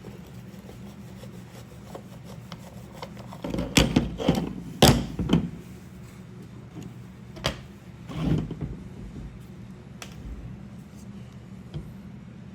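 Knocks, clunks and rattles of a Stihl 020 chainsaw and its parts being handled and taken apart on a bench, in a cluster about four to five and a half seconds in and then a few single knocks, over a steady low hum.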